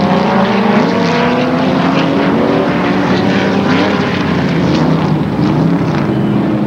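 Several vintage sports racing car engines running hard as the cars lap past, their notes at different pitches overlapping and rising and falling as they accelerate and lift.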